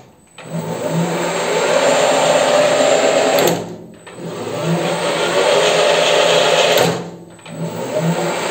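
Weisan CJM360 lathe spindle and its motor, driven through a frequency inverter, starting three times and stopping twice. Each start is a whine rising in pitch over about two seconds, the inverter's soft 2-second ramp-up. Each stop is a quicker drop to quiet.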